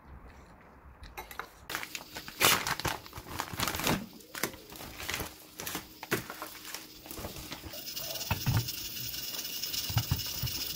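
Clear plastic food bag crinkling and rustling in quick irregular bursts as pieces of Spanish mackerel are taken out of it, with a steady high hiss joining about eight seconds in.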